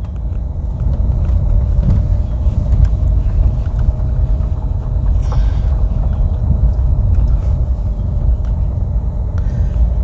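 Car climbing a steep, narrow road at low speed: a steady low rumble of engine and tyres, with a brief hiss about five seconds in.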